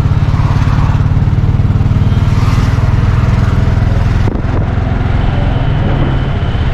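Auto-rickshaw's small single-cylinder engine running as it drives along the road, heard from inside the open cab: a steady, rapid low putter with road and wind noise over it. The sound dips briefly about four seconds in.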